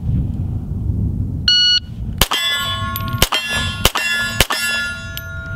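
A shot timer's start beep, then four shots from a 9mm Walther PPQ pistol, each answered by the ring of a steel target being hit. The beep comes about a second and a half in, and the shots follow over about two seconds, less than a second apart, the steel ringing on after the last.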